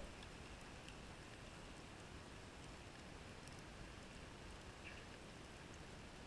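Near silence underwater over a coral reef: a faint steady hiss with scattered faint clicks and crackles.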